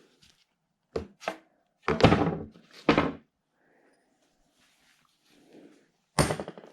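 A handful of wooden knocks and thunks, like boards or tools being set down and handled on a bench: two light knocks about a second in, a louder clatter around two seconds in, another around three seconds, and one more near the end.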